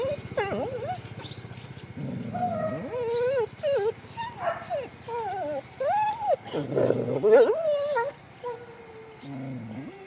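Dog whining and whimpering in a string of high, wavering cries, with a louder, fuller outburst about seven seconds in.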